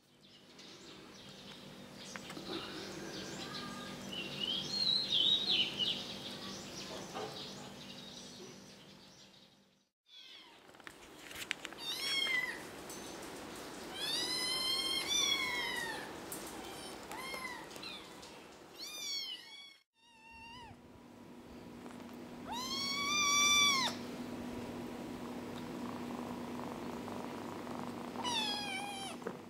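Four-week-old kittens mewing: a string of short, high-pitched mews, each rising and then falling in pitch, the loudest about three-quarters of the way in. A faint steady low hum runs underneath.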